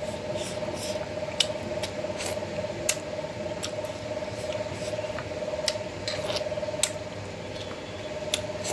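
Close-up eating sounds: chewing and wet mouth smacks, and fingers mixing rice and curry on a steel plate, heard as irregular sharp clicks. A steady hum runs underneath.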